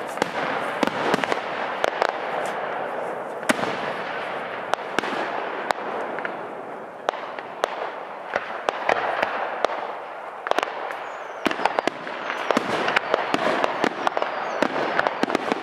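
Aerial fireworks show: a dense run of sharp bangs from bursting shells, over continuous crackling.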